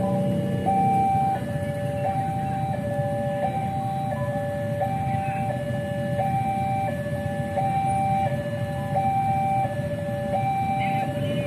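Indonesian level-crossing warning alarm sounding a steady two-tone signal, alternating high and low tones each held a little over half a second: the crossing is closed and a train is due.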